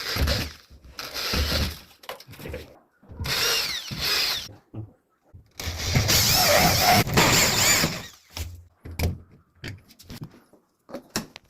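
Power tool running in several short bursts, the longest about two seconds, with clicks and knocks between them.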